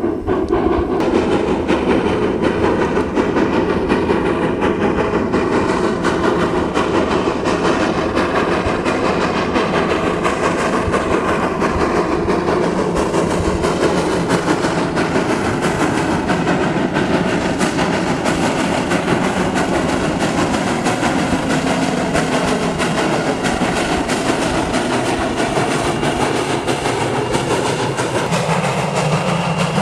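Virginia & Truckee steam locomotive No. 29, a 2-8-0, working past on a run-by with its train, exhaust chuffing rapidly and wheels clicking over the rail joints.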